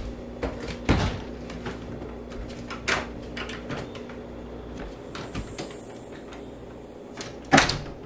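A door being opened and closed: several latch clicks and knocks, the loudest a double knock near the end.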